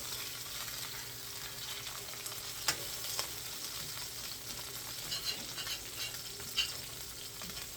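Homemade veal pieces sizzling steadily on a hot grill pan, with a couple of light clicks from a utensil about three seconds in.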